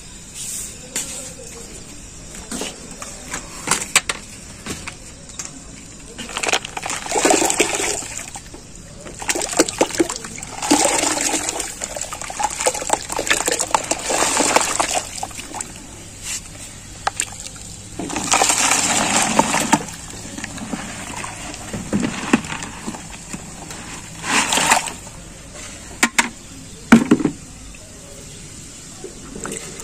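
Wet clay waste and water poured from a bucket into a large metal basin of water, in several splashing pours with a few short knocks between them.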